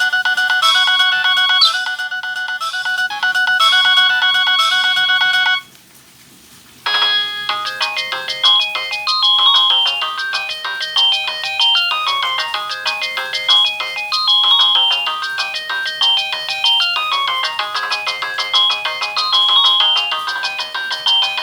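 Nokia ringtones played through the speaker of a Samsung SGH-A157 flip phone. A short repeating tune stops about five and a half seconds in, and after a brief gap a busier, quicker melody starts.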